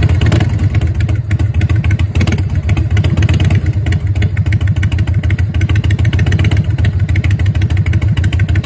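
Harley-Davidson Wide Glide's air-cooled V-twin running while the bike stands still, its exhaust pulsing in a steady rapid beat.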